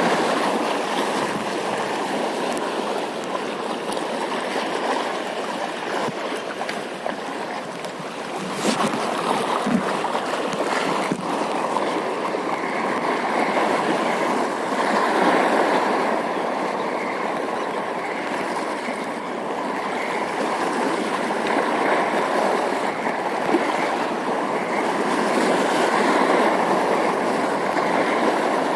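Sea water washing and lapping at the shore, a steady rushing that swells and eases every several seconds. A single sharp tick about nine seconds in.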